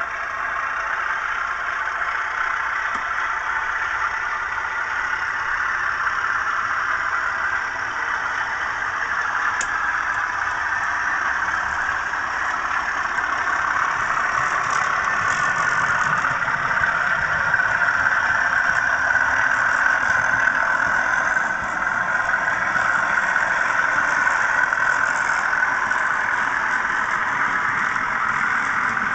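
DCC sound decoder in a model Class 37 diesel locomotive playing a recorded English Electric V12 diesel engine under power, through the model's small onboard speaker. Steady, thin engine sound without much bass, growing louder in the second half.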